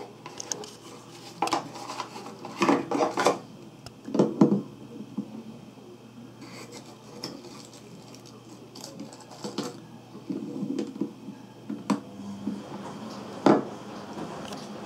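Irregular clatter and knocks of small hard objects being handled, in short clusters a few seconds apart, over a faint steady hum.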